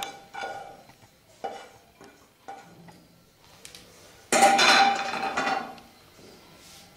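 Cookware being handled: a spoon tapping and scraping a non-stick kadhai as rice is emptied into a glass bowl, a few short clinks, then a louder clatter lasting over a second as the pan is set down.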